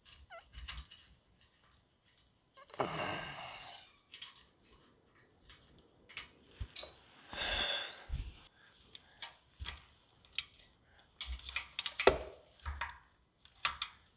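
Light metallic clicks and clinks of a hand ratchet and socket on the motorcycle's exhaust bolts and pipe. Two louder noisy sounds of about a second each come about three and seven seconds in.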